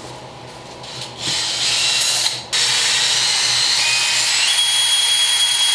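Cordless drill spinning a small hone against steel, grinding down a high spot left by a gouge in a Dana 44 stub-shaft yoke's U-joint bore. It runs in a short burst starting about a second in, stops briefly, then runs again steadily with a high whine that steps up in pitch partway through.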